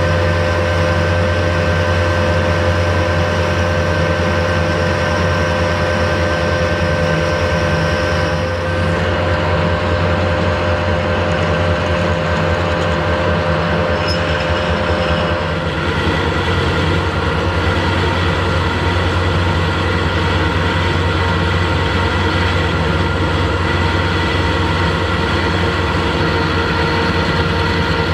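Harrison metalworking lathe running steadily with a steady hum from its motor and gearing as a twist drill in the tailstock chuck bores into bar stock. The tone of the machine shifts twice, about a third of the way in and again about halfway.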